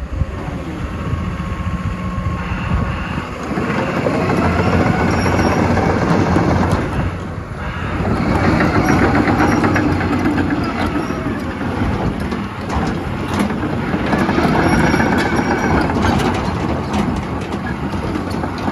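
CAT 324E excavator's C7.1 diesel engine running under load, its pitch rising and falling again and again as the hydraulics swing and move the boom. In the second half, rapid clanking of the steel tracks as the machine travels.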